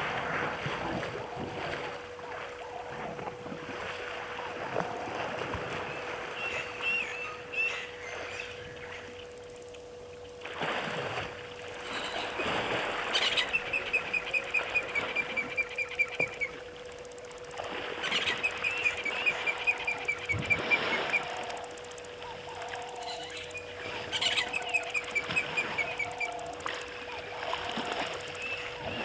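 African elephant wading and splashing through a waterhole, water sloshing around its body with heavier surges now and then. A bird calls over it three times, each call a quick run of repeated chirps falling slightly in pitch.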